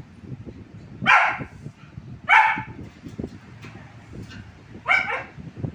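A dog barking three times, short single barks spaced about a second and two and a half seconds apart.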